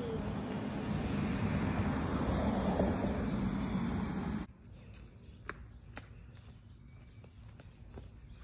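Steady outdoor background noise with a low hum in it, cut off suddenly about four and a half seconds in. After that, quieter background with scattered light clicks and rustles.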